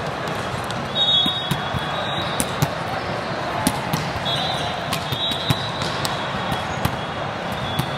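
The din of a big hall full of volleyball courts: a steady hubbub of many voices, with balls being hit and bouncing at scattered moments. Short high whistle tones, typical of referees' whistles, sound about a second in and again around four to five seconds in.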